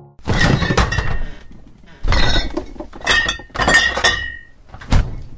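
A run of loud crashing, breaking impacts, about six over five seconds, several with a ringing tone, ending in one sharp hit near the end.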